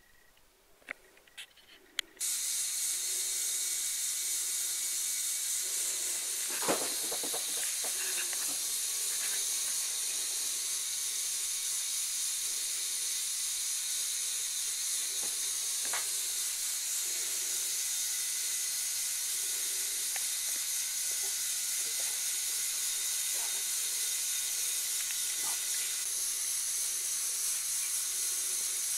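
Motorised LEGO Technic bucket wheel excavator running: its electric motor and plastic gear train give a steady high whirring hiss that starts suddenly about two seconds in, after a few light clicks, with occasional clicks of the mechanism. Power for running all the functions at once is marginal on this build.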